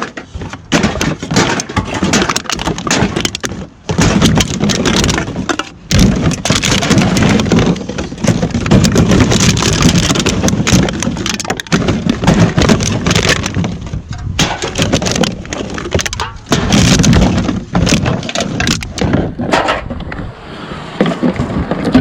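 Crinkling and clattering with many sharp cracks: a plastic bag of empty drink cans being handled and rummaged through.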